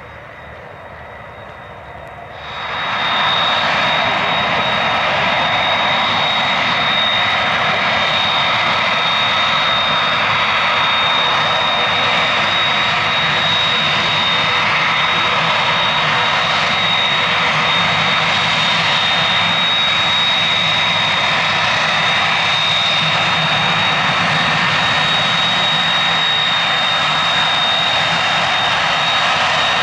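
Airbus A300-600ST Beluga's General Electric CF6-80C2 turbofans running at taxi power as the aircraft taxis close by: a steady jet noise with a high, constant fan whine. It grows abruptly louder about two and a half seconds in.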